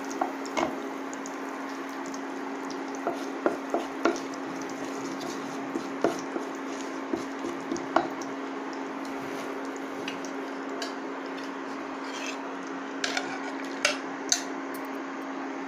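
Wooden spatula stirring and occasionally knocking in a non-stick wok as cumin and curry leaves fry gently in oil and ghee, with scattered clicks over a steady hum and a soft sizzle.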